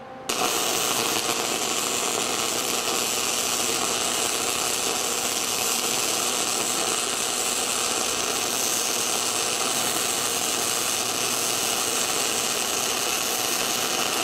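Gasless, self-shielded flux-core wire welding arc from a 110-volt welder running DC electrode-negative, laying a pass over the root pass on steel plate. The arc strikes abruptly just after the start and then burns steadily without a break.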